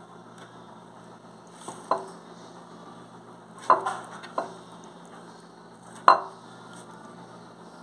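A kitchen knife clinking against a dish four times while raw beef liver is trimmed, the loudest clink about six seconds in, over a faint steady hum.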